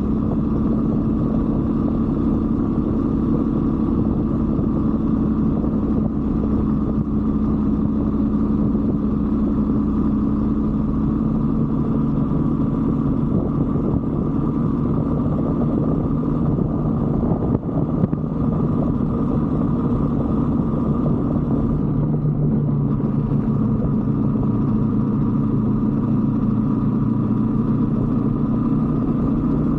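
125cc Brixton motorcycle's single-cylinder engine running steadily under way, with low wind rumble. The engine note drops lower about two-thirds of the way through.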